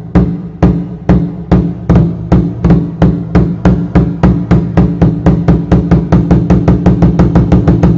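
A drum beaten in single strokes that speed up steadily, from about three a second to about five or six a second, each stroke ringing with a low tone: an accelerating festival drum roll.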